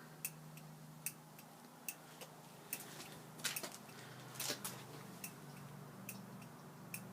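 Honda CB350 turn-signal flasher clicking at a steady pace of about one click every 0.8 s while the blinkers flash, with a faint low hum underneath.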